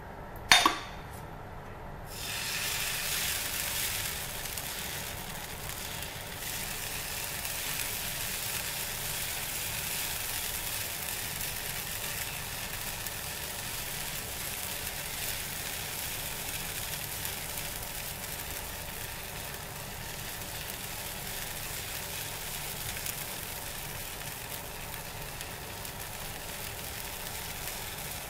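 Thin strands of jala roti batter sizzling as they are drizzled in circles onto a hot flat griddle. A sharp knock about half a second in, then a steady sizzle starting about two seconds in, strongest over the first couple of seconds.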